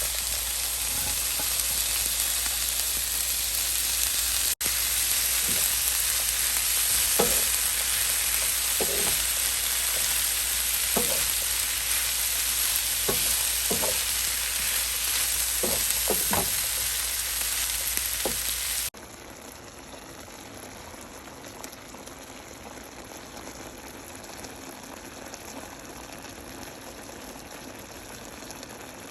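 Food sizzling in a hot pan, a steady loud frying hiss broken by a dozen short scrapes of stirring. About two-thirds of the way through it drops suddenly to a much quieter, finer bubbling sizzle.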